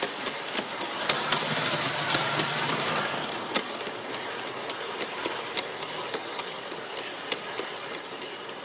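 LGB G-scale model train running on its track, heard from a camera riding on it: a steady whir of wheels and electric motor, with irregular sharp clicks as the wheels pass over the rail joints. The sound grows gradually quieter through the second half.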